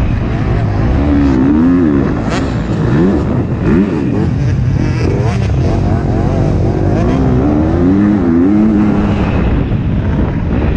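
2021 KTM 250 SX-F's single-cylinder four-stroke engine under hard riding on a motocross track, its pitch repeatedly rising and falling as the throttle is opened and chopped through the turns.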